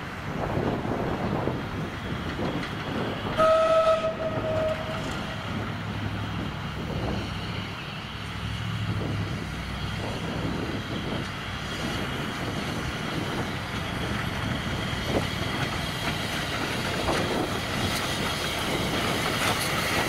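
Steam locomotive C22, a 1902 Beyer Peacock 2-6-0, running slowly with its carriages along the track, growing louder as it draws near. About three seconds in it gives one whistle blast of about a second and a half.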